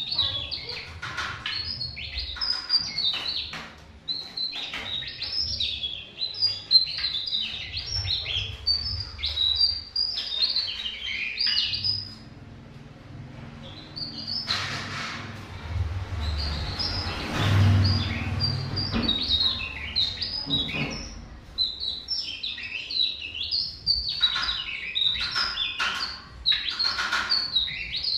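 Javan tesia singing: rapid runs of high, chattering notes in repeated phrases, with a pause of about two seconds around the middle. A short rush of noise and a low thump come partway through.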